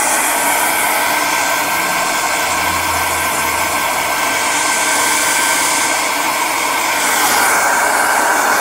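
Hand-held hair dryer running steadily: an even rush of air with a thin, steady whine.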